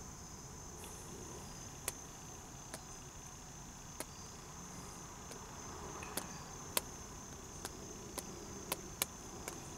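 Sharp, light clicks at irregular intervals, about ten of them, as items are tapped and selected on a handheld scan tool's touchscreen with a pen, over a faint steady hiss.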